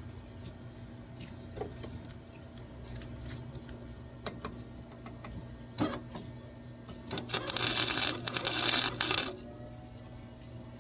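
A welder laying a short weld on sheet-metal patch panels: a dense crackling sputter of about two seconds starting some seven seconds in, with a few separate sharp clicks before it. A steady low hum runs underneath.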